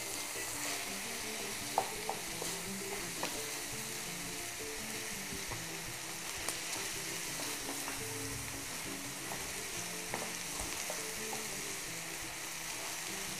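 Minced meat sizzling in a frying pan as it is stirred with a wooden spatula, with a few light knocks of the spatula against the pan.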